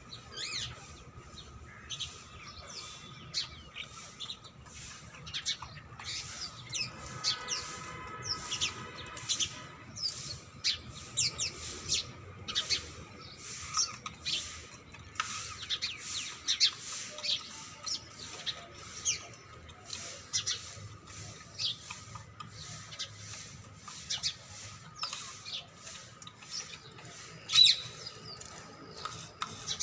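Ringneck parrots (rose-ringed parakeets) calling with many short, shrill chirps in quick succession. A louder call comes near the end.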